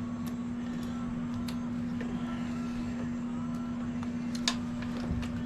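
Steady low electrical or machine hum, with a few faint clicks and knocks from carburetor parts being handled and pushed into their rubber boots, two of them close together near the end.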